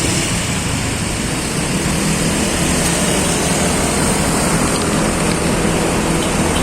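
Steady road and wind noise of a vehicle moving at speed, with a low engine drone underneath.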